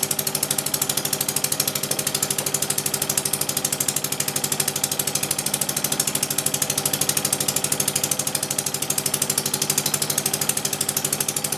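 Small model overhead-cam engine running at a fast idle, belt-driving a model twin-cylinder Scotch-yoke air compressor. Together they make a steady, rapid mechanical clatter. The compressor is under load, pumping air up to a balloon.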